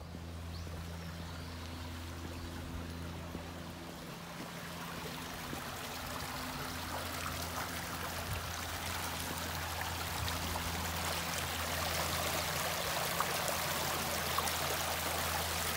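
Shallow stream of water rushing and splashing over mossy rocks, growing louder toward the end.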